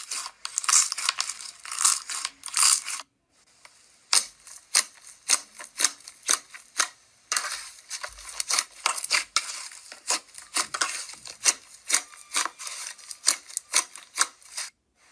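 Purple slime being pressed and squeezed by hand, giving a fast run of sharp clicks and pops. The sound breaks off briefly about three seconds in, resumes as slower pops about twice a second, and gets dense again about halfway through.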